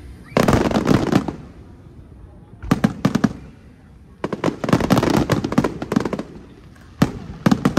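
Aerial fireworks shells bursting in rapid volleys of sharp crackling bangs. There are four bursts of salvos: about a second in, about three seconds in, a longer one from about four to six seconds, and another near the end, with short lulls between.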